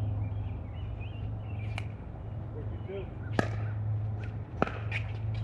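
Pickleball paddles striking the ball in a rally: three sharp pops about a second and a half apart, the loudest a little past the middle, over a steady low hum.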